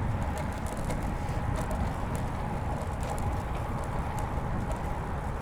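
Road bicycle riding on a paved path: wind rumbling on the microphone and a steady tyre hum, with scattered light ticks.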